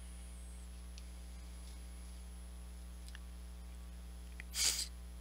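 Steady low electrical mains hum with a few faint clicks, and one short burst of noise, the loudest sound, about four and a half seconds in.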